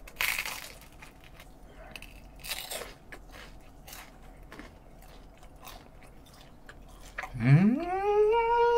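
Close-miked bite into crusty ciabatta bread, with a crunch right at the start and another about two and a half seconds in, then soft chewing. Near the end a long vocal sound that rises in pitch and holds.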